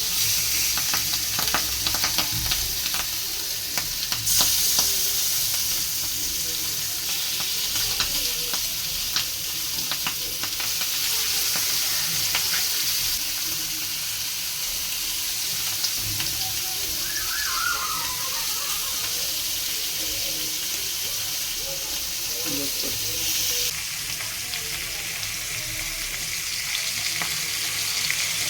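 Fish frying in a little oil on a tawa, a steady sizzle with scattered small pops and clicks in the first half.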